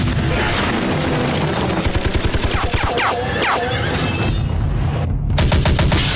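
A string of firecrackers popping in fast, dense crackling runs, at the start and again near the end, over background music.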